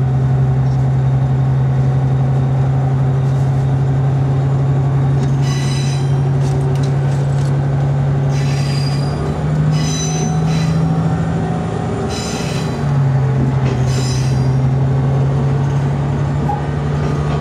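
Diesel railcar running, its engine a steady drone that steps up in pitch about nine seconds in and drops back a few seconds later. The wheels squeal in several short high-pitched bursts on the curving track.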